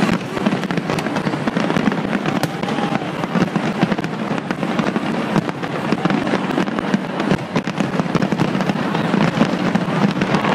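Big fireworks display at full barrage: many bangs and crackling bursts overlapping in rapid succession, with no break.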